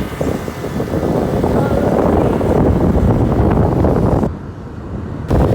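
Wind buffeting the microphone over a vehicle's running noise, as when travelling in the open. It swells, dips about four seconds in, and comes back abruptly near the end.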